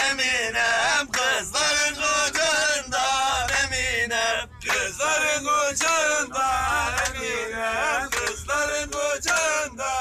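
A group of men singing a Turkish village folk song (türkü) together, with hand clapping.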